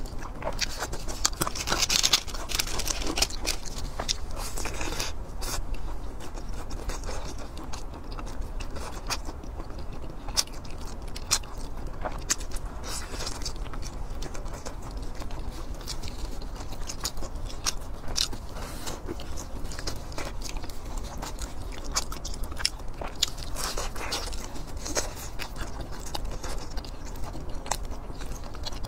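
Close-miked chewing and biting of food: pan-fried buns and sausage being bitten and chewed, with many short crisp clicks throughout and louder crunchy bites about two seconds in and again near the end.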